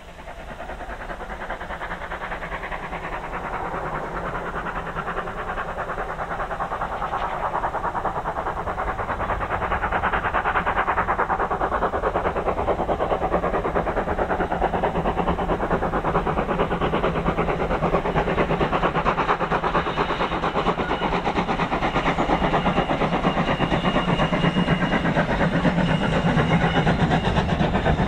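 GWR pannier tank steam locomotive No. 7714 working hard, with a rapid run of exhaust beats. It grows louder over the first ten seconds or so, then holds steady and loud.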